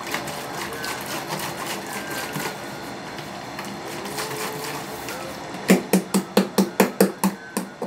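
A rapid run of about a dozen hollow knocks, about five a second, from a hand striking a capped plastic jerry can; before them there is only faint background noise.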